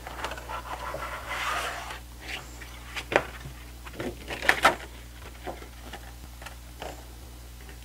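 Plastic wrapping on a large photobook rustling and crinkling as it is pulled off and the book is handled, with sharp crackles about three and four and a half seconds in.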